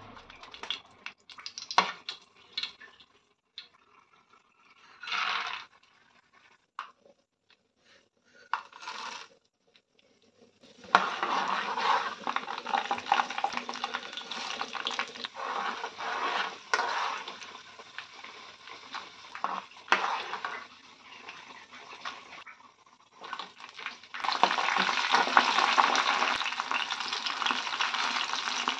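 Scattered clinks of a steel spoon against a metal pan, then peanuts and dried red chillies sizzling in hot oil as the spoon stirs and scrapes. Near the end the sizzle grows louder and denser as green chillies go into the oil.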